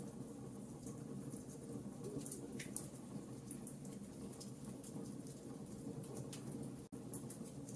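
Wood fire burning in a fireplace: a steady low rush of flame with scattered small crackles and pops. The sound cuts out for an instant near the end.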